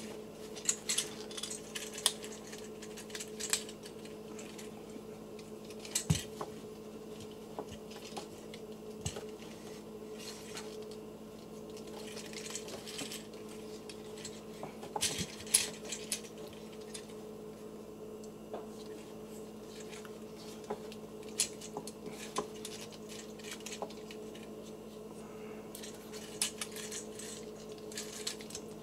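Plastic Transformers action figure being transformed by hand: scattered clicks, snaps and rattles of plastic joints and panels, in small clusters. A steady low hum runs underneath.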